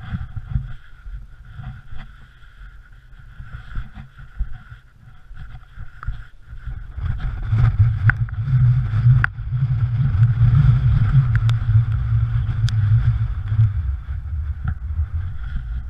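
Wind buffeting a head-mounted GoPro Hero3's microphone, a low rumble that grows stronger about seven seconds in, with a few scattered knocks.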